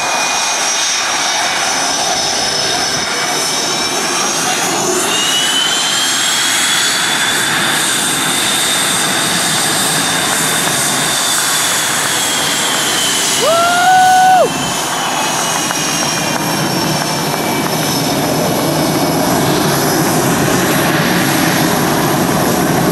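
F/A-18 Hornet's twin jet engines whining at taxi power as the jet rolls past, the whine rising in pitch and then falling away. A one-second beep sounds about halfway through.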